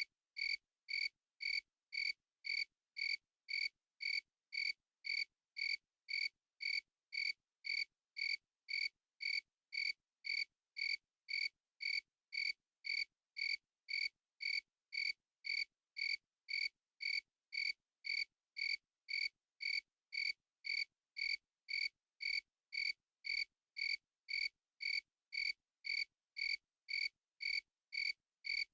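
Cricket chirping steadily, about two short, clear, high-pitched chirps a second, evenly spaced with silence between them.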